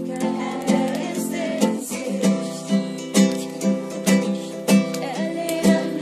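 Acoustic guitar strummed in a steady rhythm, about two strums a second, with a group of voices singing along.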